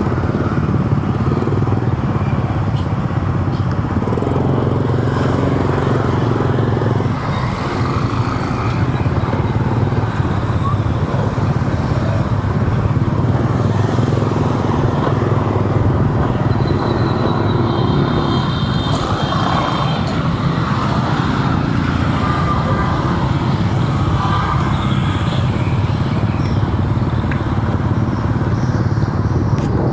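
Steady engine and road noise from a vehicle driving in city traffic, with a low drone throughout and a brief high-pitched tone a little past halfway.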